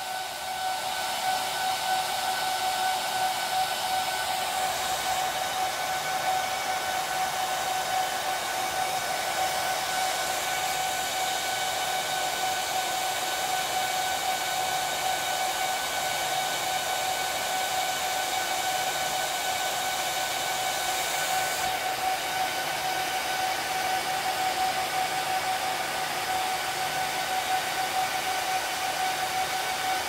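HPE ProLiant DL380p Gen8 server's cooling fans running steadily at high speed, a rush of air with a steady whine, during a long power-on self-test after a RAM change, which the owner puts down to the memory repopulating.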